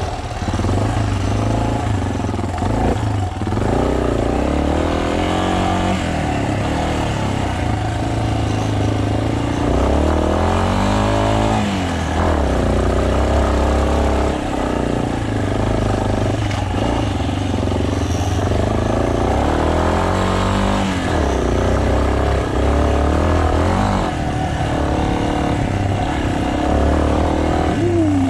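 Single-cylinder trail motorcycle engine running under way, its pitch rising and falling over and over as the rider works the throttle and gears.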